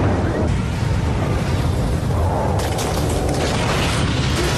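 Loud, low rumbling of a skyscraper collapsing into a dust cloud, with a burst of crackling about two and a half seconds in.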